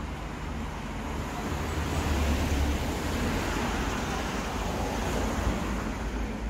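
Road traffic on a village street: a car driving past close by, its tyre and engine noise swelling about two seconds in and then easing.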